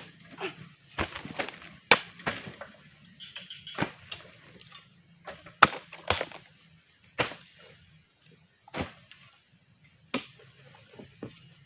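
Irregular sharp knocks and thuds, roughly one a second and thinning out after the middle, typical of heavy oil palm fruit bunches being tossed and handled.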